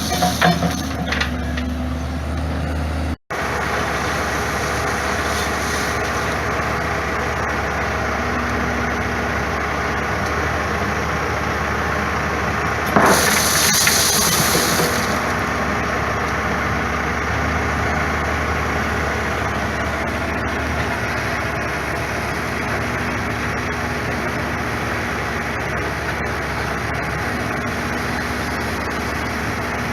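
Diesel engine of a digger or loader running steadily while scalpings are laid, with a louder noisy burst lasting about two seconds about halfway through.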